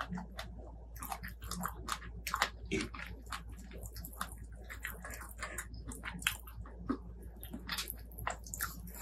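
Close-miked chewing and biting, with irregular quick mouth clicks and smacks several times a second.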